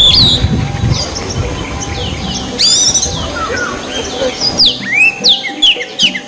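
Oriental magpie-robin singing a fast, varied run of clear whistled notes that sweep up and down, with a low rumble under the first second.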